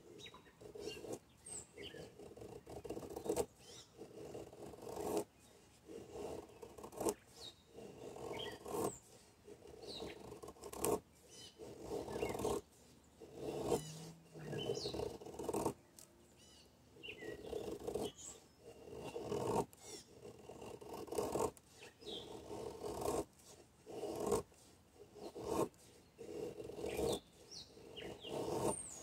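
An ESEE RB3 knife shaving curls down a soft pine stick, making feather sticks: a repeated rasping scrape about once a second, each stroke ending in a sharp click.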